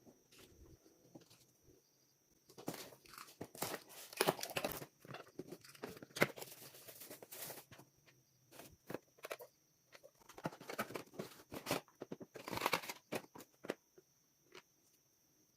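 Packaging being handled and opened: crinkling, rustling and tearing in irregular bursts, with scattered small clicks and taps between them.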